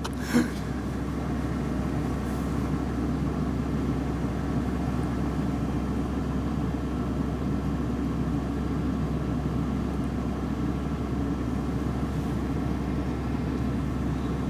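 Steady low engine rumble with a hiss, even throughout, with a brief sharp click just after the start.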